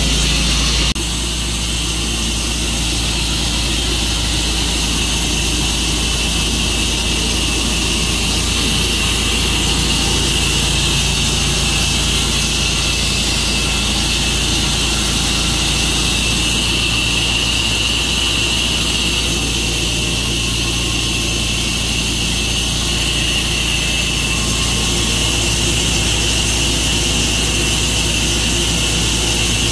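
Tru-Cut sawmill running steadily under power, its engine hum and a strong high hiss from the saw cutting through a maple log. The level dips slightly about a second in, then holds steady.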